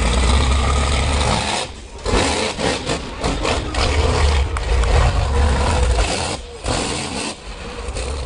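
Monster truck engine running hard under throttle, a loud deep rumble that swells and falls back as the truck drives and jumps, dipping briefly about two seconds in and again a little after six seconds.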